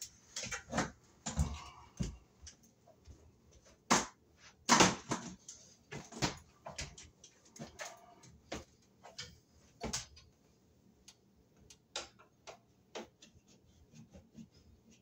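Irregular clicks, knocks and clatters of hand tools and small fan hardware being handled, with the loudest sharp knocks about four and five seconds in and another near ten seconds, thinning out toward the end.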